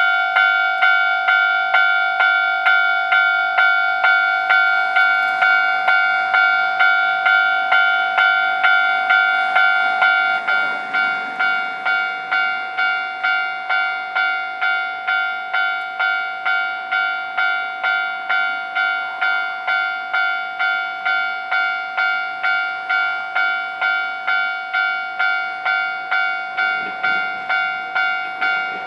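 Japanese railway level-crossing warning bell ringing, a repeated electronic ding at just under two strokes a second. Its volume steps down about a third of the way in.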